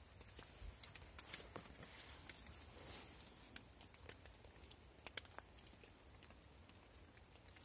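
Faint, irregular taps of water drops falling on the fabric roof of a hunting ground blind, with a soft rustle of fabric about two seconds in.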